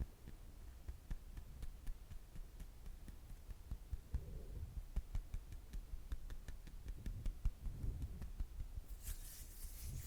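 Soft ASMR tapping: irregular dull thuds with light clicks. About nine seconds in, a scratchy rubbing sound starts.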